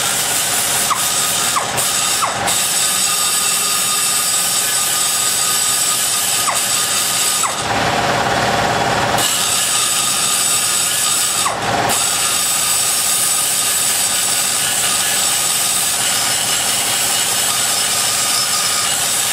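Die grinder spinning a burr and cutting metal inside an aluminum cylinder head's exhaust port: a steady high whine with grinding noise. Twice near the middle the cut briefly turns rougher.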